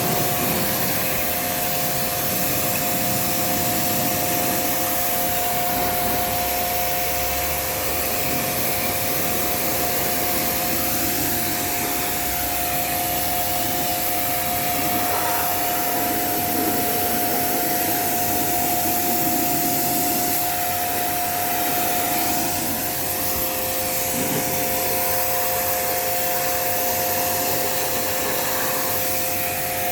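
A small electric motor running steadily with a two-note hum over a hiss of rushing air or spray, from a cleaning machine used in servicing a dust-clogged split air conditioner.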